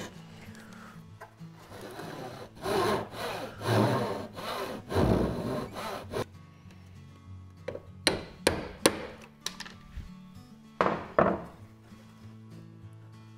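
Hand saw cutting a notch into a wooden stringer: a run of rasping back-and-forth strokes, then a few sharp knocks and a short scrape near the end as the waste is worked out with a chisel.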